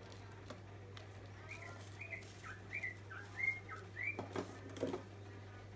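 A run of about eight short, high whistle-like notes, each rising or falling in pitch, over a few seconds. Then a few seconds of crackly rustling and clicking of plastic accessory bags being handled.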